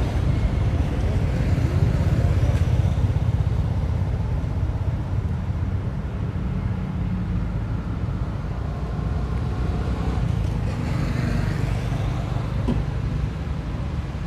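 Road traffic ambience: a steady low rumble, with a vehicle passing by about eleven seconds in.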